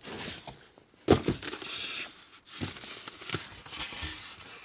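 Handling noise: irregular rustling and crinkling with a few sharp knocks, the loudest about a second in.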